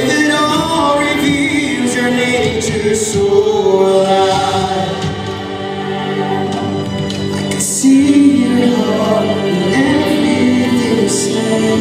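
Live Spanish-language worship song: several voices singing together over a band with guitar and keyboard, getting louder about eight seconds in.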